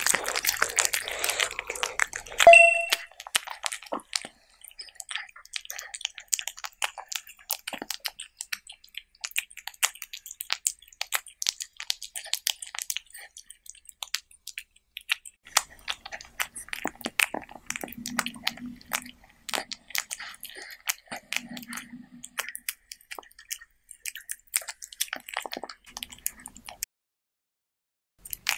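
A cat eating from a plate, close-miked: wet licking and chewing, heard as a dense run of small clicks. About two and a half seconds in comes a single short bell-like ding, the loudest sound, a finish-signal sound effect marking one cat clearing its plate.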